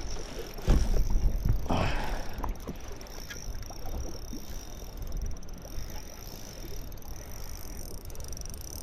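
Wind buffeting the microphone and water slapping against a fishing boat's hull, with a couple of louder rushes in the first two seconds.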